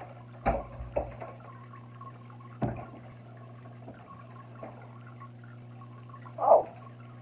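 Steady low hum in a small room, broken by a few sharp knocks in the first three seconds and a short vocal exclamation from a young man near the end.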